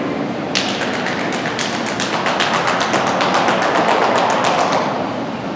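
Rapid, even hand clapping, about seven claps a second. It starts about half a second in and stops near the end, over the hall's steady background noise.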